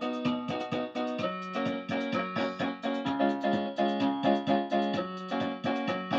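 Electronic keyboard played with a piano-like voice: quick, evenly repeated notes over held chords.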